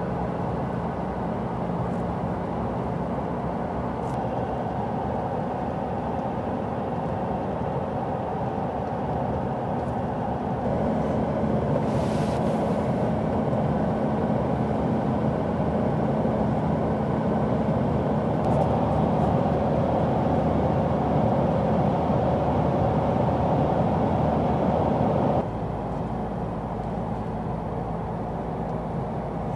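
Steady road noise inside the cabin of a 2015 Mazda BT-50 ute before sound deadening, driving at about 80 km/h and then about 100 km/h. The noise gets louder about ten seconds in and falls back about 25 seconds in as the speed drops to about 70 km/h.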